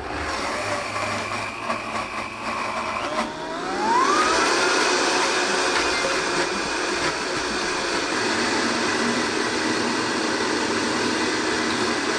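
Vitamix power blender puréeing zucchini into a thick sauce. It starts at a lower speed, the motor whine rises about three seconds in as the speed dial is turned up, and then it runs steadily at high speed.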